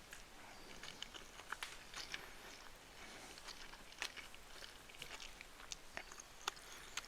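Quiet close-up eating of chicken fried rice: chewing, with scattered short sharp clicks and crunches at irregular moments.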